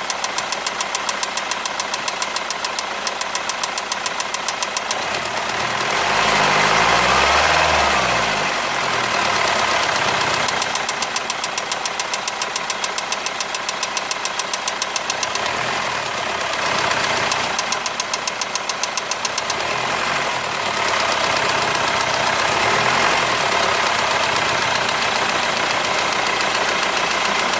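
Ford Transit 2.4 TDCi diesel engine running with a fast, even ticking knock, which the owner puts down to the rockers. The engine is revved up and back down a few times, most strongly about six to nine seconds in, and the knock keeps time with the engine speed.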